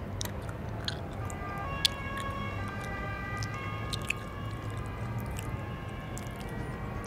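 Someone chewing gum with irregular wet smacks and clicks over a steady low hum. Faint high tones glide slowly up and down behind it.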